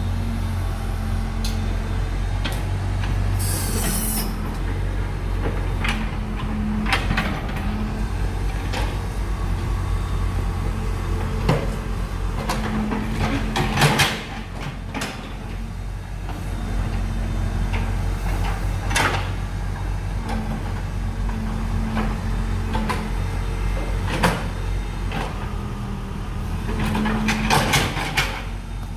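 JCB backhoe loader's diesel engine running steadily, its pitch rising and falling again and again as the hydraulics take load. Scattered knocks and cracks come from the digging arm striking and breaking the concrete of a water-channel control box.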